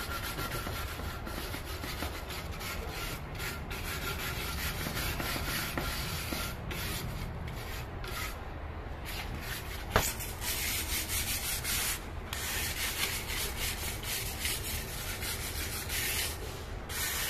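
Wire brush scrubbing the face of a hard emery millstone from a flour mill in rapid, repeated strokes, cleaning off a surface that has hardened and started to turn black from grinding damp or coarse grain. A single sharp click about ten seconds in.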